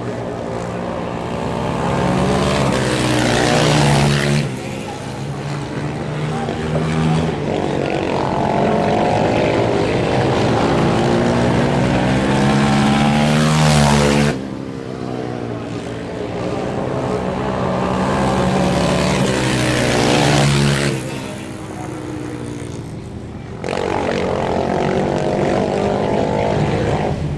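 Racing quad bike engines revving up and down hard as the quads lap the track, the pitch climbing and dropping again and again. The sound jumps abruptly a few times.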